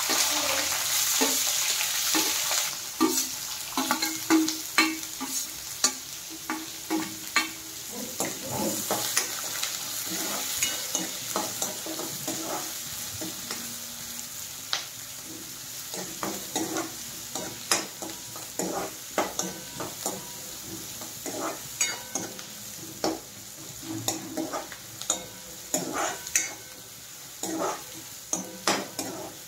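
Chopped onion frying in hot oil in a kadhai, sizzling loudest in the first few seconds after it goes in, then more softly. A steel spoon scrapes and clinks against the pan again and again as the onion is stirred.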